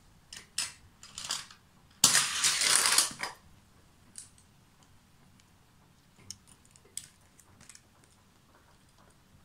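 Die-cast toy cars clicking and clattering against a plastic toy car-carrier truck as they are handled and loaded. There are a few light clicks, then a louder clattering rattle lasting about a second, about two seconds in, then scattered small clicks.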